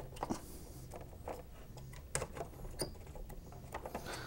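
Faint, scattered clicks and light scraping of fingers working the metal spring clips at the top of an ozone generator's air dryer column, with a couple of sharper clicks about halfway through.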